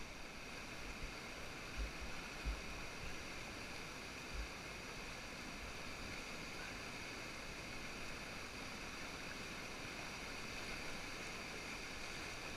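Steady rushing of whitewater in a river rapid, with a few brief low thumps in the first half.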